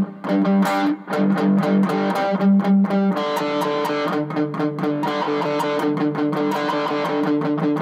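Distorted electric guitar (Fender Stratocaster) picking a single string in rapid repeated strokes, the notes short and choked at first as in palm muting. About three seconds in they change to a lower note left ringing unmuted, part of a drill alternating muted and open picking on the D string.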